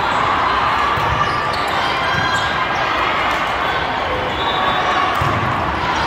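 Volleyball tournament hall din in a large hall: volleyballs are struck and bounce on the courts over a steady background of many voices.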